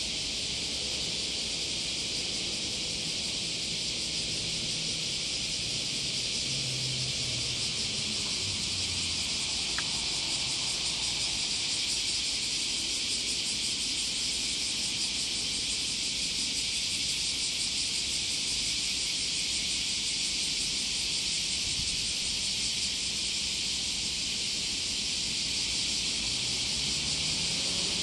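Dense insect chorus: a steady, high, hissing buzz that holds level throughout, with faint low hums underneath.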